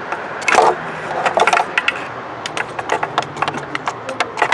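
Irregular clicks and small knocks of a test light's clip and probe being handled against metal, with a louder knock about half a second in.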